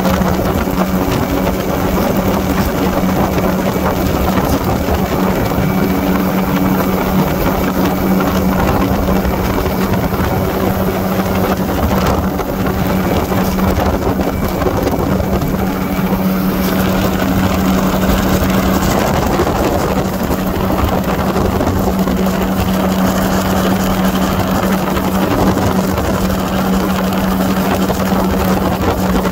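Aircraft engine drone in flight: a steady loud hum with a constant rushing noise over it.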